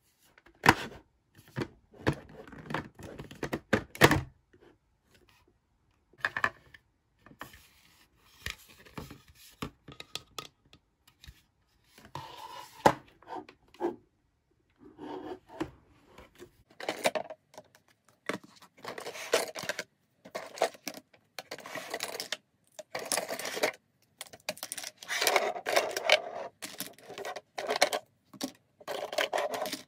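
Hard plastic toy tea-set pieces clicking, knocking and rattling as they are handled: a lid lifted off a clear plastic teapot-shaped case, and cups, saucers and spoons taken out and set down. The clicks and clatter come irregularly, with short pauses between them.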